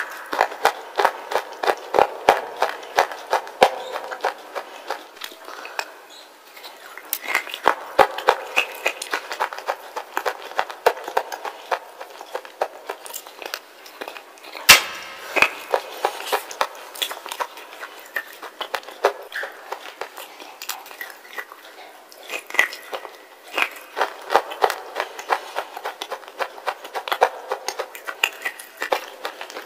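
Close-miked biting and crunching of a wet slate-pencil bar: crisp, gritty cracks and crackles several times a second as pieces are bitten off and chewed, with a couple of short lulls and one sharper crack about halfway through.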